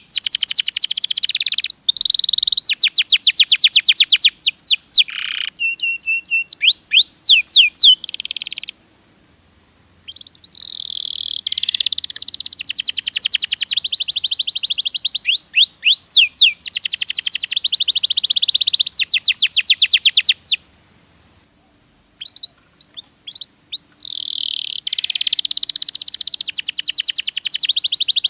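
Domestic canary singing in long, rapid trills of quickly repeated falling notes, pausing twice for a second or two.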